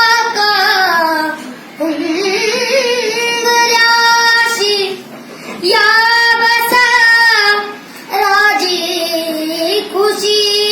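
A child singing long, wordless held notes with vibrato, in phrases broken by short breaths, with no accompaniment.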